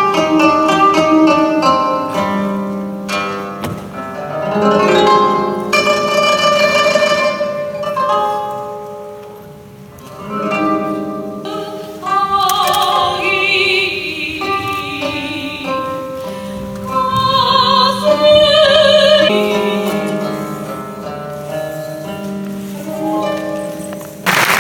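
Music: plucked strings with a melody of long, held notes that waver in pitch.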